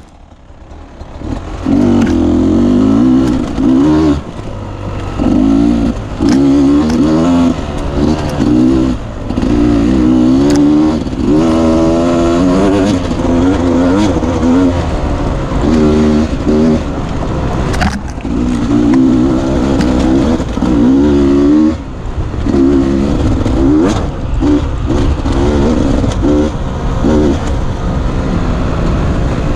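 Beta 250 RR two-stroke enduro motorcycle engine being ridden hard, its pitch rising under throttle and dropping back again and again as the rider works the throttle and gears. It is quieter for the first second or two, and there are a few sharp knocks from the bike on rough ground.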